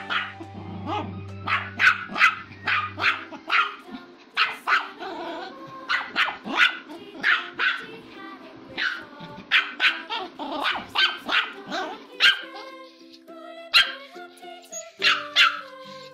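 Chihuahua barking repeatedly in short, high yaps, several a second at times, with a brief lull near the end before another run of barks. Background music with steady held notes plays underneath.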